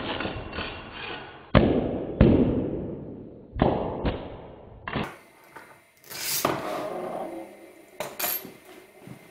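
A series of sharp knocks and clatters, hard objects striking a hard surface, each dying away quickly. A rushing scrape fades out over the first seconds, and after about five seconds come a few more scattered knocks and a brief scrape.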